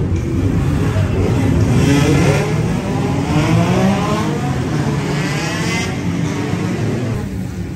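Race truck diesel engine running with a heavy low rumble, its pitch climbing steadily as it is revved over a few seconds, then settling.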